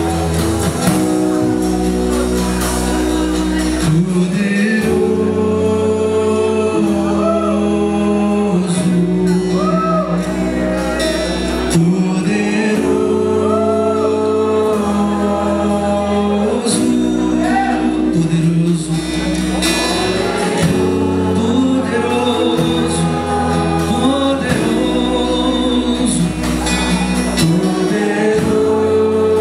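Live gospel worship music: a band with acoustic guitar and bass plays slow, sustained chords that change every couple of seconds, with a singing voice over them.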